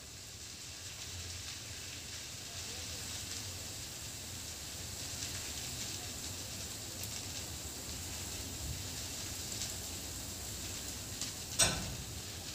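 Brush fire burning through dry scrub, a steady crackling and hissing with many small snaps, and one loud sharp crack near the end.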